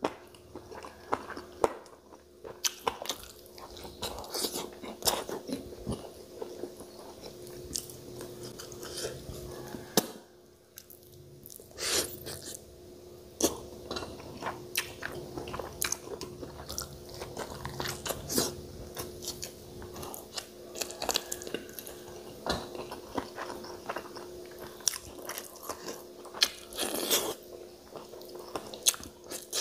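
Close-miked chewing and biting, with many short wet mouth clicks and lip smacks, from a man eating chicken and rice by hand.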